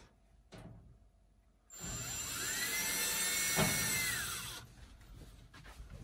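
Cordless drill running once for about two and a half seconds, its motor whine rising as it spins up, holding steady, then falling as it stops: backing out a screw.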